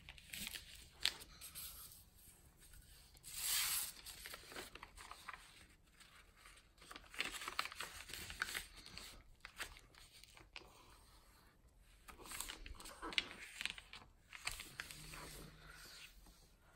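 A sheet of paper being folded and creased by hand, pressed flat against the floor: scattered rustling and crinkling with a few sharp clicks and one longer rustle a few seconds in.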